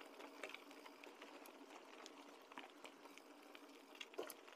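Faint crackle and scattered small clicks of a mountain bike rolling along a dirt singletrack.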